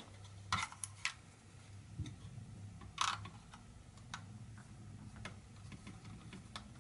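Small screwdriver undoing a screw in the plastic underside of a Microsoft Wireless Mouse 1000: a few faint, scattered clicks and taps of the tool and the handled plastic casing, the loudest about three seconds in.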